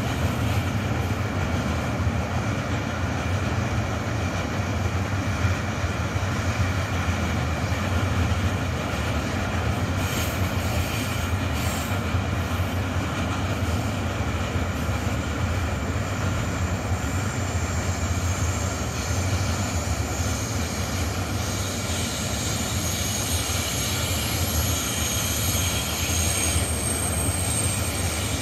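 Intermodal freight train of pocket wagons carrying lorry trailers rolling past, a steady rumble of wheels on rail. From about two-thirds of the way through, a high-pitched wheel squeal joins in.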